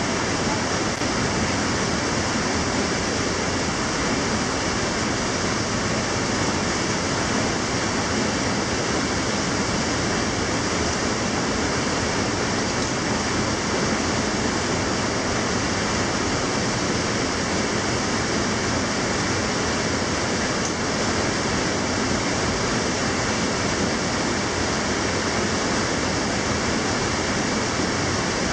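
Steady, unchanging rushing noise at an even level throughout, with no distinct events.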